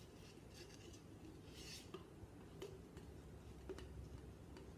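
Faint handling sounds from a spoon and a powder canister: a short scraping rustle about one and a half seconds in, then a few light clicks.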